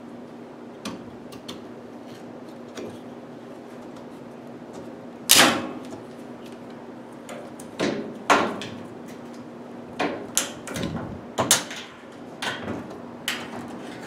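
Locking pliers twisting and prying an old plastic suspension-rod cup out of its holder on a Whirlpool Cabrio top-load washer: a series of sharp plastic clicks and knocks, the loudest about five seconds in.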